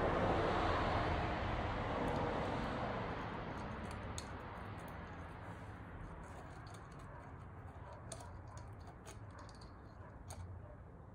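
A vehicle going past, its noise fading away over the first six seconds or so. After that come scattered faint small metallic clicks as clutch spring bolts are handled and set onto the pressure plate.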